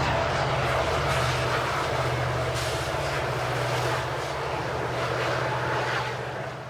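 Norfolk Southern freight train rolling past: a steady rumble of wheels and cars with a low engine-like hum underneath, fading out near the end.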